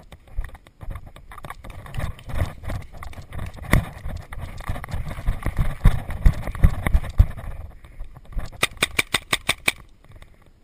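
Scuffing footsteps and thumps of gear knocking against a head-mounted camera as a paintball player moves along a wall, then near the end a rapid burst of about nine paintball marker shots, roughly eight a second.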